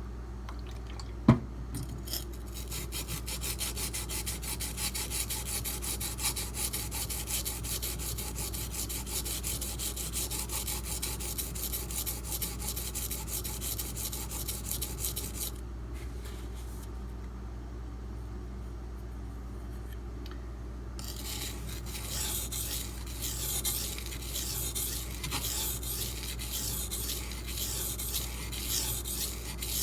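D2 steel knife blade being stroked by hand across a coarse 240-grit silicon carbide benchstone, a rapid run of gritty scraping strokes while raising a burr on the edge. A single sharp knock comes about a second in, and the strokes pause for several seconds after the middle before starting again.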